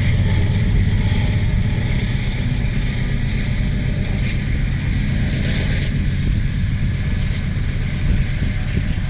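Union Pacific freight train of autorack cars passing, a loud, steady low rumble.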